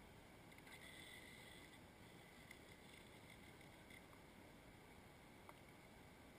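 Near silence: a faint steady hiss, a little brighter about a second in, with a couple of small clicks.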